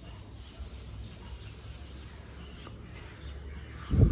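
A person breathing out a lungful of cigarette-style smoke from a pre-roll, the exhale blowing onto the microphone as a loud gust near the end, over a steady low rumble.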